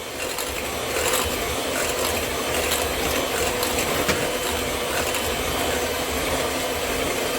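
Electric hand mixer running steadily, beating cupcake batter in a bowl, with a few faint clicks of the beaters against the bowl.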